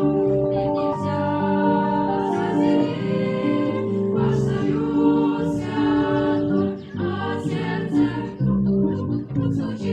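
A Christian song: voices singing a melody over musical accompaniment.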